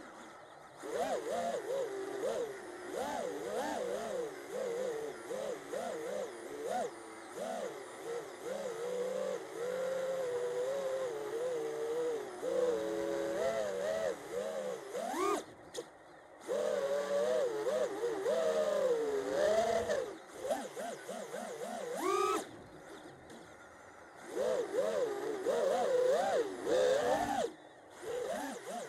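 Holybro Kopis II racing quadcopter's brushless motors and propellers whining, the pitch rising and falling constantly with the throttle. A few times the whine sweeps up quickly and then drops away abruptly as the throttle is cut.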